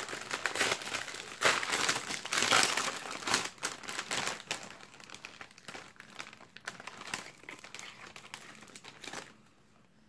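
Foil wrapper of a Panini Adrenalyn XL mega starter pack crinkling as it is torn open by hand: loud for the first three seconds or so, then quieter rustling that stops about a second before the end.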